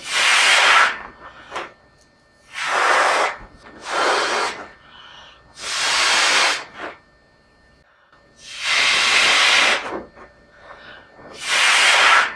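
Balloons being blown up by mouth: a series of six hissing puffs of breath, each about a second long, separated by short pauses.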